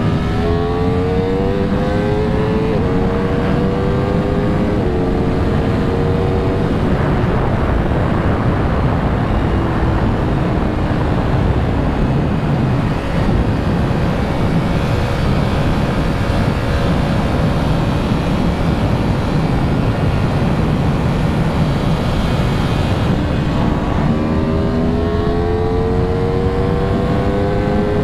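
2019 Aprilia RSV4 RR's V4 engine accelerating hard at high speed, its pitch climbing through an upshift about three seconds in. Through the middle the engine note is buried under rushing wind noise, then near the end it climbs in pitch again through another gear.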